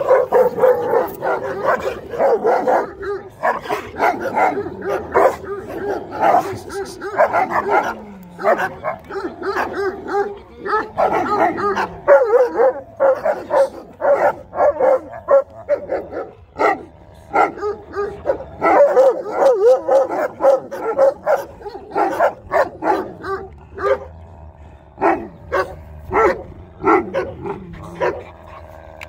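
Large dogs barking over and over in a rapid series, thinning to spaced single barks in the last few seconds.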